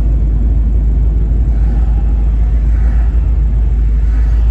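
Fox-body Mustang's engine, exhaust and road noise heard from inside the cabin while driving: a loud, steady low rumble with no revving.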